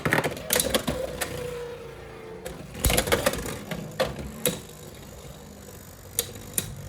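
Beyblade X tops spinning in a plastic stadium with a steady hum that sinks slightly in pitch as they slow. Sharp plastic clacks of collisions come around three seconds in and again a little later, then only a few light clicks.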